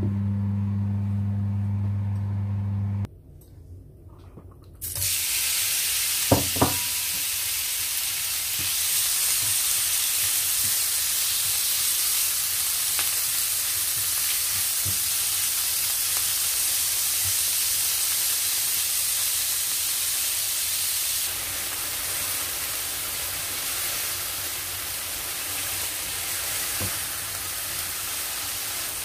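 Diced chicken sizzling as it fries in oil in a nonstick frying pan, stirred with a spatula, a steady hiss after a brief lull; a couple of sharp knocks about six seconds in. The first three seconds hold a steady low hum.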